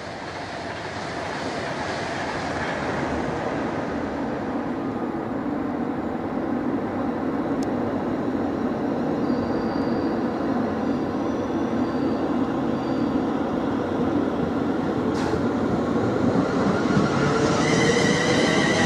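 Class 230 D-Train, a converted London Underground D78 unit with Ford diesel engines, approaching along a curve into the platform and growing steadily louder. Near the end, high wheel squeal comes in as it rounds the curve.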